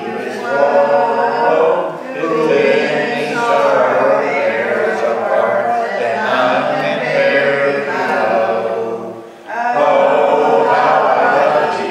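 A small congregation singing a hymn together in long held notes, with a short break between phrases about nine seconds in.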